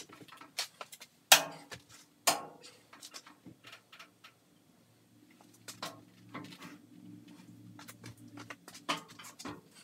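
Grizzly G0463 mill-drill being shoved and nudged by hand on its stand: a few sharp metal clanks and knocks, the loudest two about a second and two seconds in, then a faint low drone through the second half.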